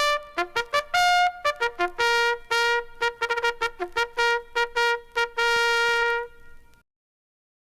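A bugle call played on a brass bugle or trumpet: a fast run of short tongued notes on a few pitches, ending on a long held note that stops suddenly.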